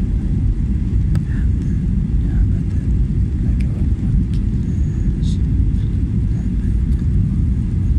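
Steady low rumble of an airliner's engines and airflow heard inside the passenger cabin during the descent to land.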